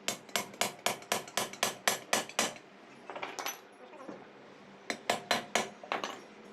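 Hammer striking metal gearbox parts: a quick run of about ten blows, roughly four a second, a couple more after a pause, then another run of five or so near the end.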